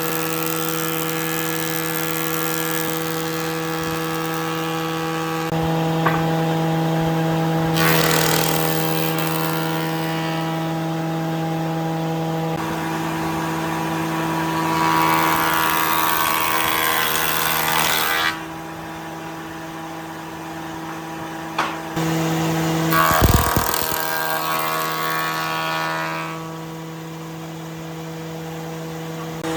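A motor-driven woodworking machine running with a steady, constant-pitched hum. It has several stretches of louder rushing noise, like wood being cut, and a couple of sharp knocks about two-thirds of the way through.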